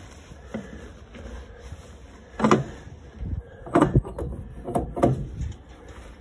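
Shop-rag wiping out the metal bearing bore of a mower blade spindle housing as the housing is handled, cleaning out debris before a new bearing goes in. Three louder rubbing, knocking sounds come about a second apart in the middle.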